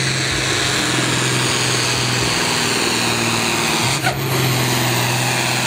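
Ford pulling tractor's diesel engine running flat out under heavy load as it drags the weight sled, a loud steady drone with slight shifts in pitch. The sound dips briefly about four seconds in.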